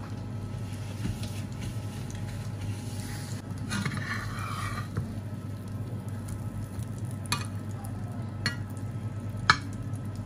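A rolled scrambled-egg quesadilla frying in a pan, a soft steady sizzle of hot fat that swells for about a second, around four seconds in, as the tortilla is turned. Near the end come three sharp clicks of a metal slotted spatula against the pan, the last the loudest.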